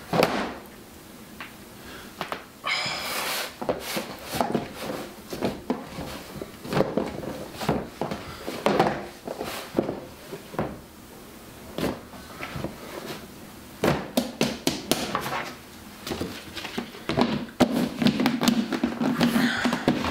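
Dough being handled in a plastic dough tub on a stainless-steel bench: irregular knocks and thuds of the tub and dough, with a brief squeak about three seconds in.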